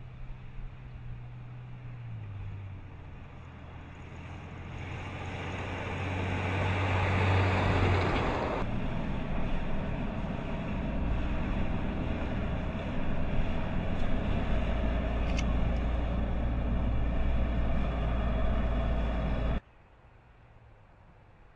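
Ram 3500 heavy-duty pickup truck driving by while towing a loaded trailer: a steady low engine hum with tyre and road noise that swells to its loudest about six to eight seconds in, changes suddenly, then holds steady before cutting off abruptly near the end.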